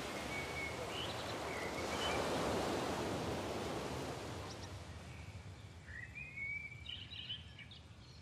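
Outdoor ambience: a steady rush of noise that fades away over the second half, with a few short bird chirps about a second in and again near the end.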